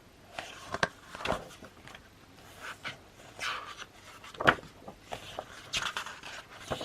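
Pages of a glossy album photobook being handled and turned: irregular paper rustles and sharp snaps, the loudest about four and a half seconds in.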